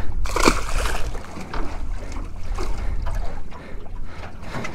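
A small spotted mackerel splashes into the sea as it is tossed back, a short burst about half a second in. After that, steady wind rumble on the microphone, with small water slaps and knocks against the aluminium tinny's hull.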